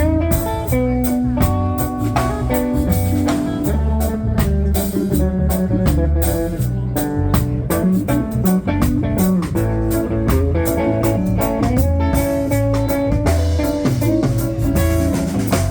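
Instrumental break in a reggae song: a lead guitar melody over a bass guitar line and a drum kit keeping a steady beat.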